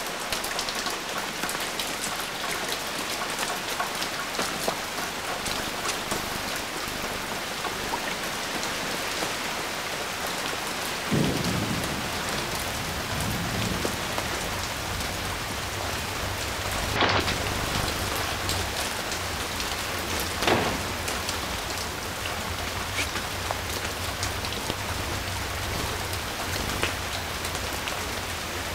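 Heavy rain falling steadily. About eleven seconds in a low rumble comes in beneath it and stays, and two sharp cracks stand out later on.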